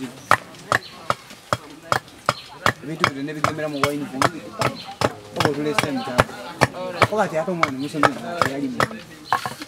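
A small hand axe chopping into wood in a steady rhythm, about two to three sharp strokes a second, with voices talking in the background.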